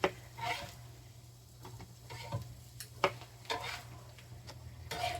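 Spatula scraping and knocking against a frying pan as cooked fried eggs are worked loose and lifted out, a few separate scrapes and taps, with a faint sizzle from the pan.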